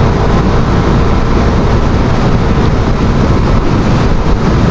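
Wind rushing loudly over the helmet camera's microphone as a Suzuki Raider 150 FI cruises at highway speed, with its single-cylinder engine running steadily beneath.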